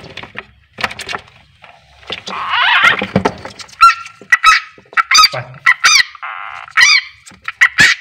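Distress screams of a frog seized by a keeled rat snake (Ptyas carinata). A long wavering cry starts about two seconds in, then comes a rapid string of short, arching cries.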